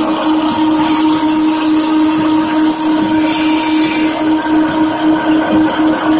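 Veneer peeling line machinery running: a steady motor hum over constant mechanical noise from the belt conveyor carrying the peeled veneer.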